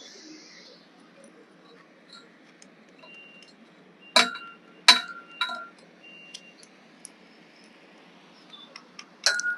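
Metal knocking against metal: a few sharp clinks, three in quick succession about four seconds in and one more near the end, each ringing briefly.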